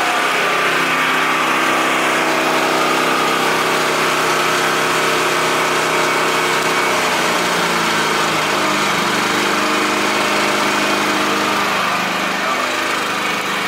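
Champion 3500-watt dual-fuel portable generator running steadily, then slowing when its economy mode is switched on: about seven to nine seconds in, the engine's pitch falls and the noise goes down.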